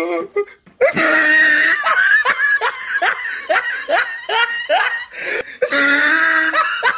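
A person laughing: a long string of short, falling laughs, about three a second, then a longer drawn-out laugh near the end.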